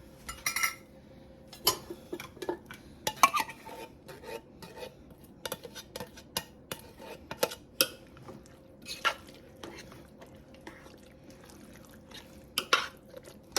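Spoon clinking and scraping against cookware in irregular knocks while canned ingredients are scooped and stirred in.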